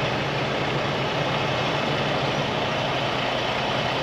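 Semi truck's diesel engine running steadily at low revs while the truck reverses slowly.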